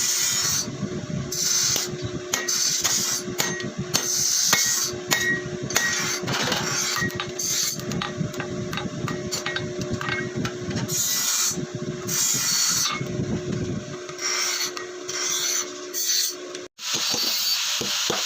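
Hand file rasping across steel in repeated back-and-forth strokes, about one stroke every second or so, over a faint steady hum. The sound cuts out abruptly near the end and gives way to a faster rattling scrape.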